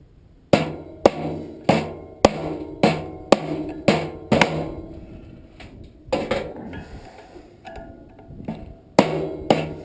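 Hammer blows on metal, each ringing briefly, as a furnace blower motor is pounded out of its squirrel-cage blower wheel. About two blows a second for the first four seconds, a few seconds of lighter knocking, then the heavy blows start again near the end.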